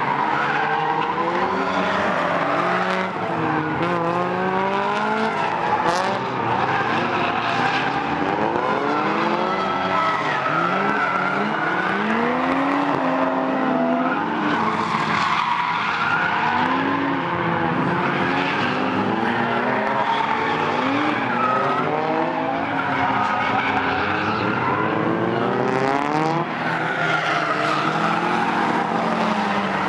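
Drift cars on a circuit: engines revving up and down over and over as they slide through corners, with tyres squealing.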